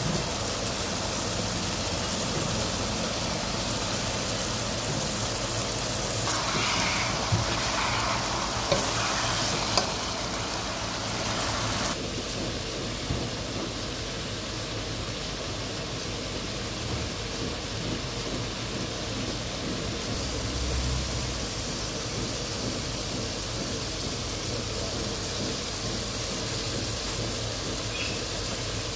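Pork sizzling in a hot wok as it is stir-fried, a steady hiss. It is louder for several seconds near the middle, with a few sharp knocks, then drops suddenly to a quieter sizzle about twelve seconds in.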